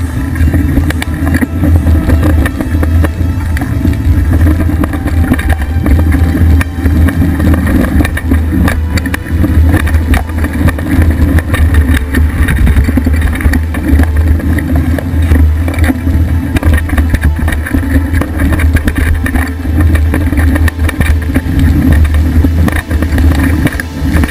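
A mountain bike rolling fast over a dirt trail, heard from a camera mounted by the front wheel. There is a loud, steady rumble of tyre and wind noise with a constant clatter of small jolts and rattles.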